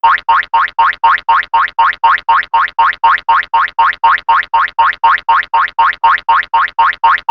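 Cartoon running-footsteps sound effect: a fast, even run of short pitched blips that each slide upward in pitch, about four a second, starting suddenly.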